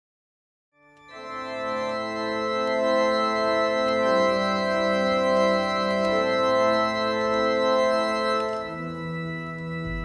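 Film score music of sustained organ chords, coming in about a second in after silence and shifting chord a few times; a deep low note joins near the end.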